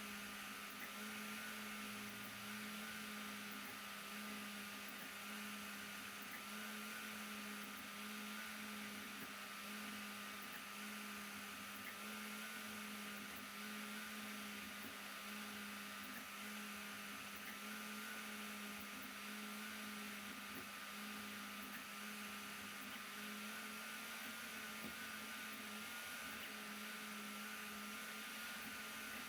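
Sovol SV08 CoreXY 3D printer running a print: a faint steady machine hum from its stepper motors and fans. The low tone pulses in short regular beats and sits over a fainter higher whine and soft fan hiss.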